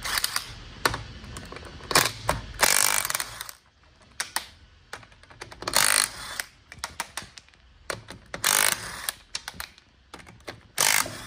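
Cordless impact gun hammering on the wheel nuts in several short bursts, the longest about a third of the way in, with clicks and clatter of the tool and socket between them.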